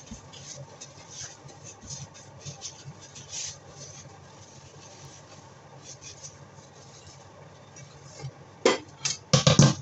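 A cloth wiping across a glass stovetop in repeated soft rubbing strokes, then a few loud knocks near the end.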